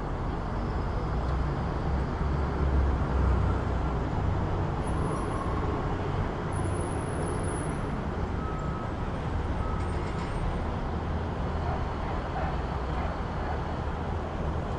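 City street traffic: a steady rumble of engines and tyres, with one vehicle passing close and loudest about three seconds in.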